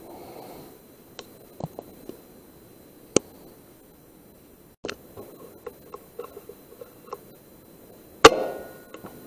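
Scattered small clicks and taps, then, about eight seconds in, one loud sharp report with a short ringing tail: a shot from an Air Arms S510 .177 pre-charged pneumatic air rifle.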